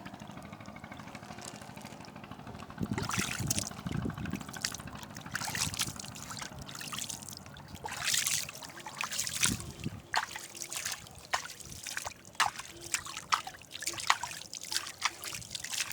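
Nile river water trickling and gurgling in many small, irregular splashes and drips, beginning a few seconds in.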